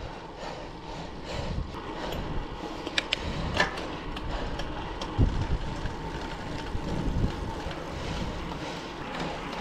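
A road bike being ridden uphill: a steady rolling noise of tyres and drivetrain with some low wind rumble on the microphone. Two light clicks come about three seconds in, and a low bump about five seconds in.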